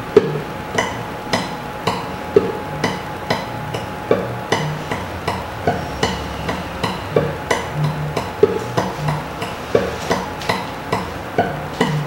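A guitar played slowly in a tremolo exercise: single bass notes alternate with triplets plucked on the top string, in an even stream of picked notes roughly two a second.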